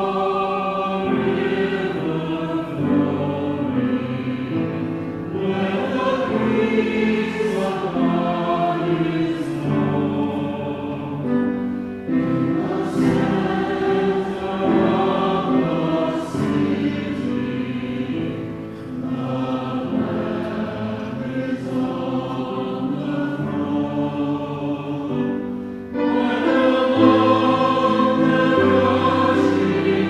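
Church congregation singing a hymn together, growing louder about 26 seconds in.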